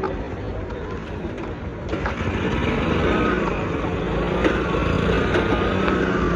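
Motor vehicle running with road noise, growing louder about two seconds in, with a faint whine on top.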